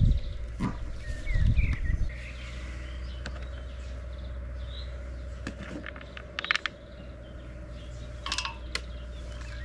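Waterside outdoor ambience with a steady low wind rumble on the microphone. A few short bird chirps come in the first two seconds, and a handful of sharp clicks come past the middle and again near the end.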